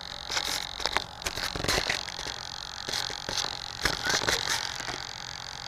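Handling noise on a foam RC model airplane heard through its onboard action camera: scattered clicks, taps and rustles as the airframe is moved and tilted by hand, over a faint steady hum.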